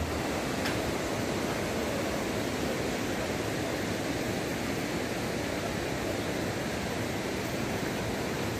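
Steady rushing of a waterfall, an even noise with no distinct events.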